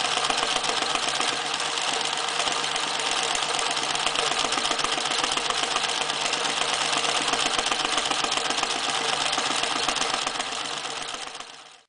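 Reads 1209 electric zigzag sewing machine running steadily, its needle making a fast, even run of strokes through a 3.5 mm thick leather belt. The sound fades out near the end.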